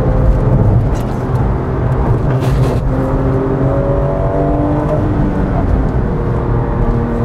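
Porsche 996 GT3's naturally aspirated flat-six heard from inside the cabin at track speed, a steady engine drone over road and tyre noise, with its pitch rising under acceleration through the middle.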